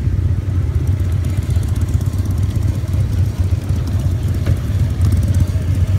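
V-twin cruiser motorcycle engine running at low speed, a steady low rumble. A single sharp click comes about four and a half seconds in.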